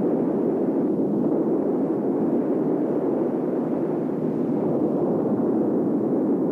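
Steady, dull roar of ocean surf, even and unbroken, with most of its weight low and little hiss on top.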